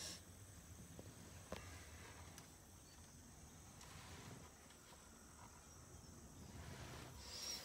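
Near silence with a faint, steady high-pitched insect chorus, likely crickets, and a light click about one and a half seconds in.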